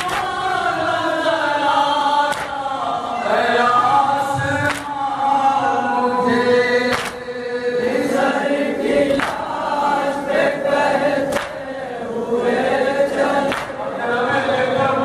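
A group of men chanting a noha in unison, a mourning lament, with sharp hand strikes on the chest (matam) keeping time about once a second.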